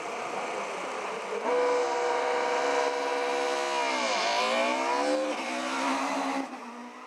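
Rally car engine held at steady high revs, then dipping about four seconds in and climbing again as the car launches and accelerates hard, with a gear change about a second later. It passes close, and the sound drops away near the end.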